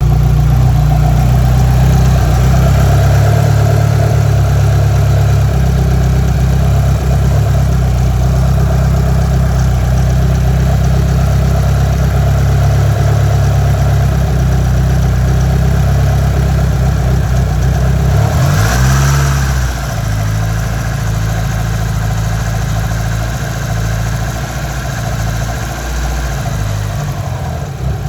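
A first-generation Mitsubishi DSM's engine running steadily, with a chirping noise that appears only around 3,000 rpm. About two-thirds of the way through the revs shift and the engine drops back to a slightly quieter run.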